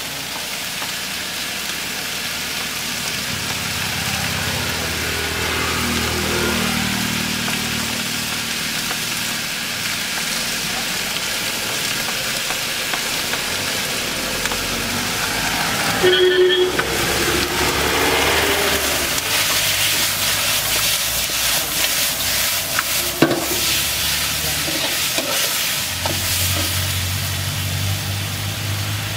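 Chicken pieces frying in a large iron wok with a steady sizzle, stirred with a long steel ladle.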